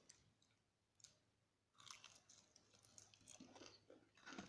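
Faint chewing and crunching of a first bite of spicy fried chicken, close to the microphone: a few soft crunches from about two seconds in and a slightly louder one near the end.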